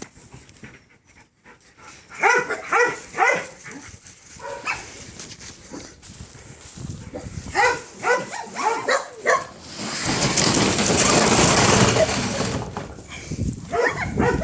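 Dogs barking in short runs of quick barks, several times. About two-thirds of the way in, a loud, steady rushing noise lasts about two seconds.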